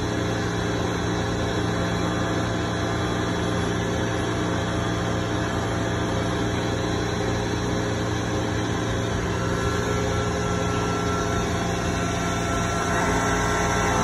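Okuma MC-V4020 vertical machining center running: a steady mechanical hum with several steady tones, a little louder near the end.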